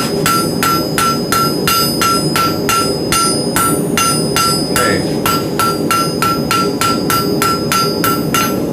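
Blacksmith's hammer striking hot iron on an anvil in a steady rhythm of about three blows a second, each blow ringing, with light blows rounding the thin end of a taper. There is a short break in the hammering about five seconds in, and a steady low rumble runs underneath.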